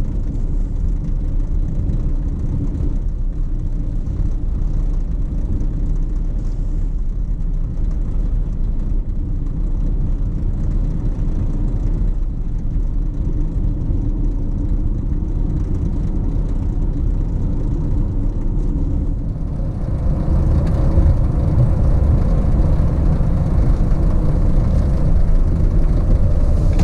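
Steady road and engine noise of a moving vehicle, growing louder about twenty seconds in.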